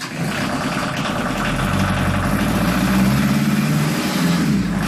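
Beta Marine 43 four-cylinder diesel engine on a new narrowboat starting for the very first time after fuel priming: it has just caught and runs rough at first, then settles into a steady idle about a second and a half in.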